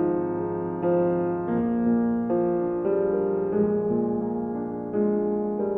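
Slow piano music: sustained chords, a new one struck every second or so.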